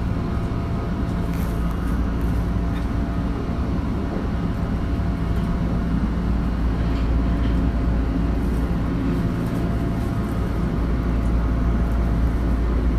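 Tokyo Metro 2000-series subway train standing at the platform, its on-board equipment giving a steady low hum with a faint constant tone over it.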